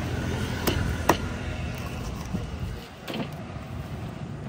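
Heavy cleaver-like fish knife knocking against a wooden cutting board: two sharp knocks about a second in, and a softer one around three seconds, over a low background rumble.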